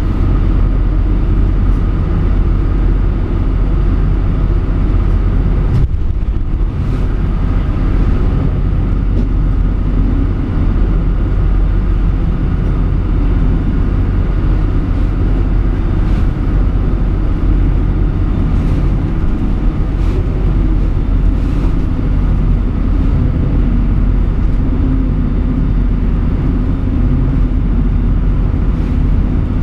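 Motorboat's engine running steadily under load, heard from inside the wheelhouse as a constant low rumble. Several times a wave or spray hits the hull and windows with a brief slap as the boat drives through storm waves.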